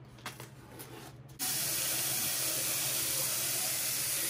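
A few faint clicks, then about a second and a half in a bathroom sink faucet is turned on and runs steadily, the stream splashing over a clear acrylic panel held under it.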